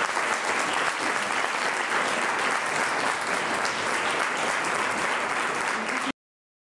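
Audience applauding steadily, then cut off abruptly about six seconds in.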